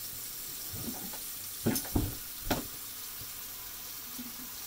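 A steady hiss, with three short knocks or clatters about two seconds in.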